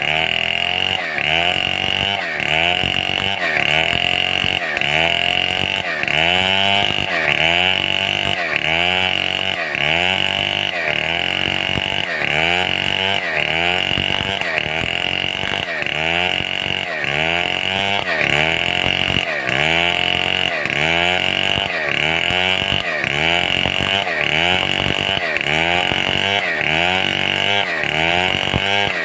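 Stihl 070 two-stroke chainsaw cutting under load, its engine pitch sagging and recovering in a steady rhythm about once a second as it works through timber for a beam.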